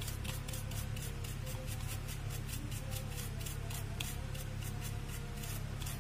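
Small stiff brush scrubbing an ECU circuit board in quick back-and-forth strokes, a scratchy rasp about four times a second, with background music underneath.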